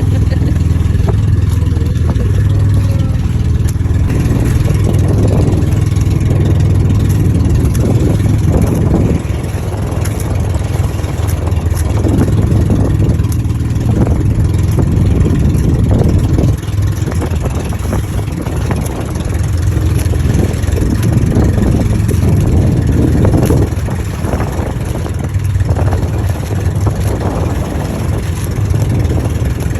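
Steady low rumble of a moving vehicle's engine and road noise, with uneven rushing noise over it.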